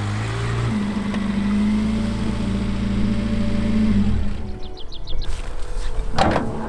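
Citroën C15 van's engine running as the van rolls in and slows to a stop, its pitch dropping once, then switched off about four seconds in. A few sharp door and latch clunks follow near the end.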